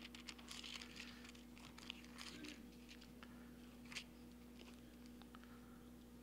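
Faint rustling and crinkling of thin Bible pages being leafed through by hand, with scattered soft ticks and one sharper tap about four seconds in, over a low steady room hum.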